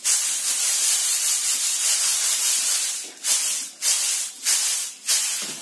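Brown mustard seed sliding and rattling across a tilted bamboo mat as it is shaken to clean it of chaff: a steady hiss for about three seconds, then four short swishes.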